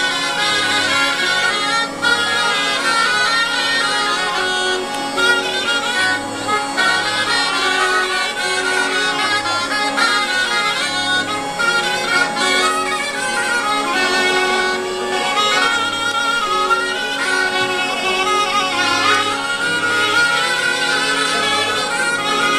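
Southern Italian zampogna bagpipe and ciaramella shawm playing a folk melody over steady drones, with an organetto button accordion pulsing a regular bass underneath.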